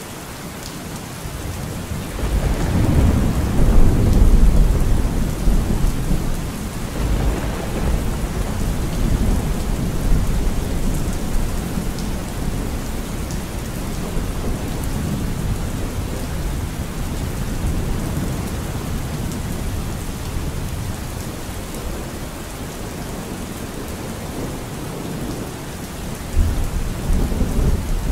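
Steady rain with thunder: a long low rumble builds about two seconds in, peaks soon after and rolls away over several seconds, and another rumble starts near the end.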